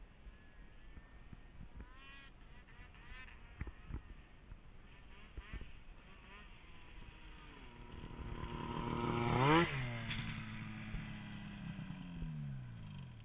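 Arctic Cat Sabercat 700 snowmobile's two-stroke engine passing at high speed, about 105 mph: its note grows louder and higher as it closes in, drops sharply in pitch as it goes by about nine and a half seconds in, then slides lower and fades away.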